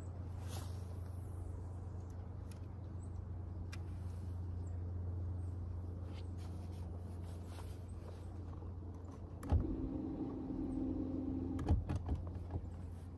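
A steady low motor hum, with a sharp click about two-thirds through, a brief whirring whine for about two seconds, and a few more clicks near the end.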